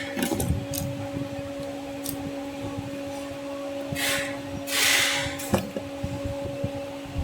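Handling noise during a smoke machine's repair: a couple of short rustles of parts being moved, about four and five seconds in, and a sharp click just after, over a steady low hum.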